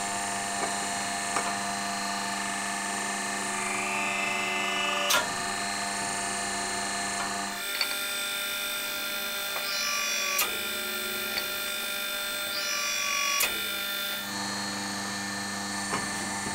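A 20-ton hydraulic forging press running, its pump giving a steady mechanical hum with a whine, and a few sharp clicks. The hum's tone shifts abruptly twice, about halfway through and near the end.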